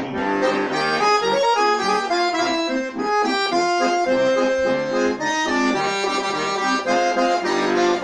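Chromatic button accordion playing an instrumental passage: a moving melody over sustained chords and bass notes.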